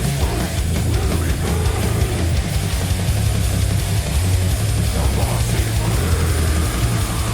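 Heavy metal drumming on a drum kit, played along with distorted guitar music, recorded through a video camera's built-in microphone.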